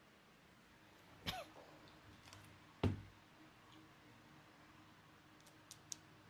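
A few sharp clicks and light knocks from small tools and laptop parts being handled on the bench, the loudest about three seconds in, with a few faint ticks near the end.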